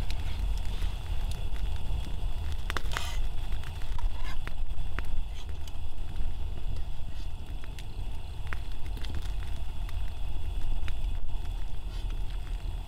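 Wood fire burning in a small folding fire stand, crackling with scattered pops over a steady low rumble.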